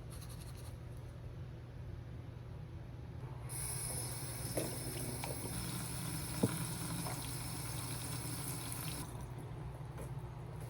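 Kitchen tap running water into a pot for about five seconds, starting about a third of the way in, with a sharp knock a little past halfway. A low steady hum runs underneath throughout.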